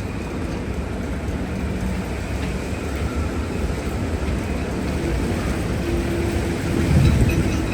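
Gale-force wind buffeting the microphone over the rumble of a rough sea, with the loudest gust about seven seconds in. A faint steady hum runs through the second half.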